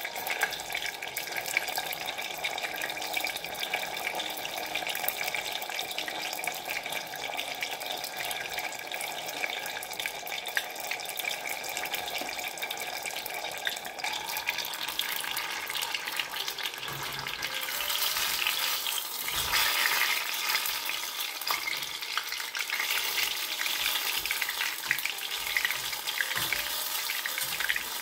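Battered banana fritters deep-frying in hot oil in a saucepan, a steady crackling sizzle. Partway through, the lid comes off and the sizzle turns brighter and louder, with a few light knocks of the lid and spatula against the pan.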